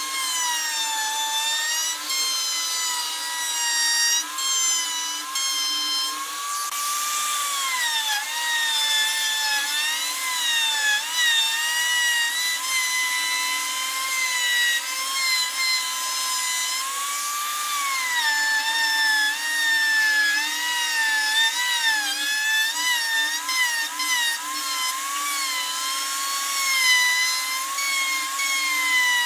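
Electric plunge router running and cutting round recesses into pine boards. Its motor whine wavers continuously in pitch, dipping and recovering as the bit works through the wood.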